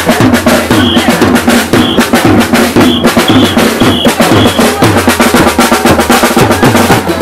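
Loud dance music with a steady drum beat and pulsing bass.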